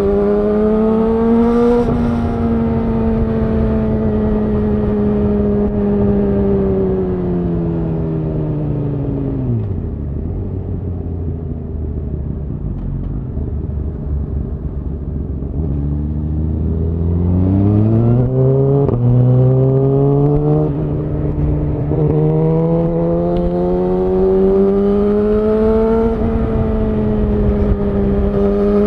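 Suzuki GSX-R1000R inline-four through a Yoshimura R-11 SQ exhaust, heard from the bike while riding. The engine speed falls away for several seconds and runs low and steady, then climbs again through three quick upshifts and settles into a cruise that rises and eases with the throttle.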